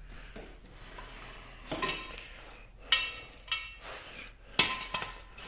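Metal parts clanking and clinking as they are handled, several sharp knocks, each followed by a brief metallic ring.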